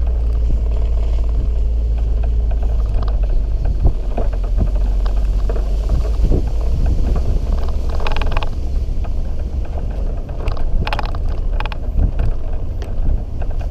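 Off-road 4x4 driving over a bumpy dirt track: a steady low engine and tyre rumble with frequent knocks from the rough ground. A few short harsh bursts come about eight and eleven seconds in.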